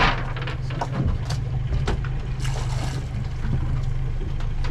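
A boat's motor idling with a steady low hum, with scattered short knocks over it.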